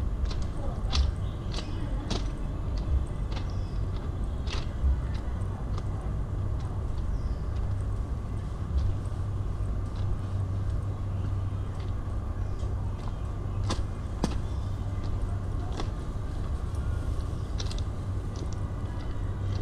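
Outdoor city street ambience: a steady low rumble with scattered sharp clicks and taps at irregular intervals.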